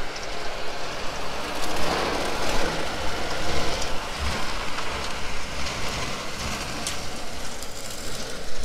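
Tractor-pulled bale processor running, its spinning beaters shredding a round hay bale and throwing the hay out in a windrow: a steady dense noise over the low rumble of the John Deere tractor's engine.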